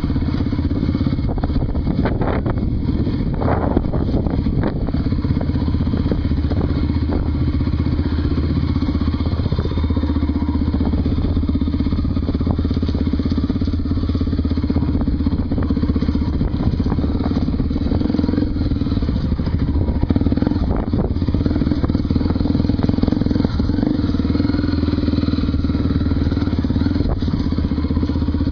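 Honda XR250 Tornado trail motorcycle's single-cylinder four-stroke engine running at fairly steady revs, with a few knocks near the start.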